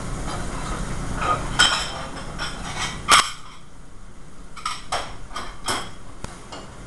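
Metal pans and utensils clanking on a commercial kitchen line: a string of sharp knocks and clinks, the loudest about three seconds in, over a steady low hum.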